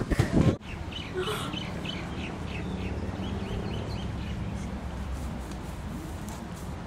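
Birds chirping lightly over a low steady hum, after a short burst of speech at the very start.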